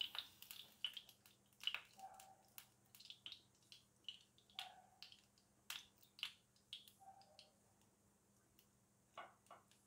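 Faint, scattered soft taps and wet dabs of a silicone brush oiling the wells of a heated paniyaram pan.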